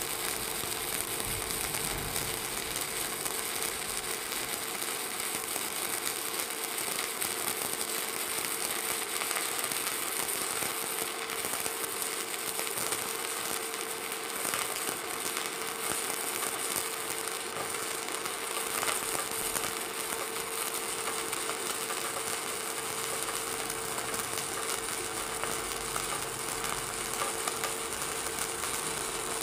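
Stick-welding arc from a Jasic ZX7-200 Pro inverter welder burning a 3.2 mm electrode on steel plate. It burns steadily and evenly without breaking, with a faint steady tone underneath.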